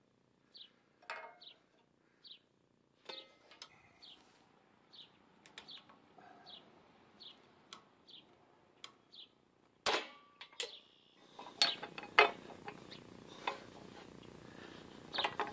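Scattered metallic clicks and clanks from a ratchet strap being worked on a steel shop-press frame, with a sharper clank about ten seconds in and a cluster of knocks after it. A small bird chirps the same short high note over and over, less than a second apart.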